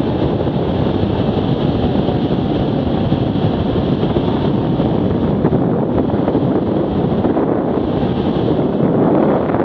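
Wind buffeting the microphone steadily while riding an Arctic Cat 650 H1 ATV at speed, with the engine running beneath it.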